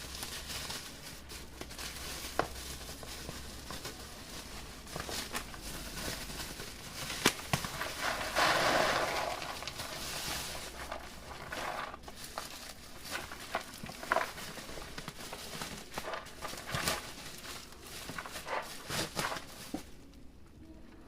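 Packaging being handled: plastic and cardboard crinkling and rustling, with scattered clicks and knocks and a louder stretch of rustling about eight to ten seconds in.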